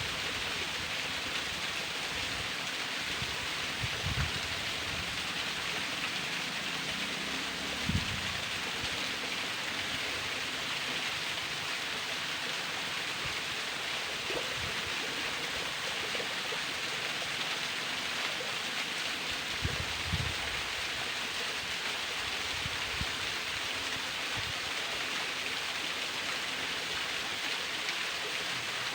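A thin waterfall splashing steadily, a continuous hiss of falling water, with a few short low thumps a few seconds apart.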